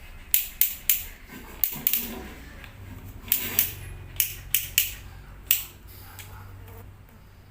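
Adjustment collar of an INGCO 12V cordless drill being turned, clicking through its torque settings: about a dozen sharp plastic clicks in uneven groups.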